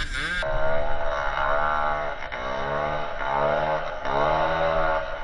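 Dirt bike engine revving, its pitch climbing and then dropping back three times in a row.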